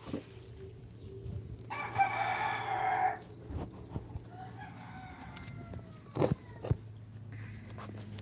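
A rooster crows loudly once, about two seconds in, and a fainter crow with a falling pitch follows a few seconds later. Two sharp knocks come about six seconds in.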